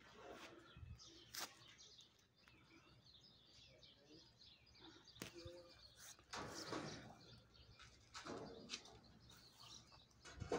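Faint outdoor ambience: small birds chirping now and then, with two brief rustling noises about six and eight seconds in.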